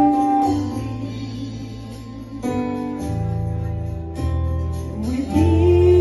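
A woman singing a slow gospel worship song into a microphone over a sustained instrumental accompaniment. She holds a long note at the start, drops out while the accompaniment carries on, then comes back in about five seconds in, sliding up into another long held note.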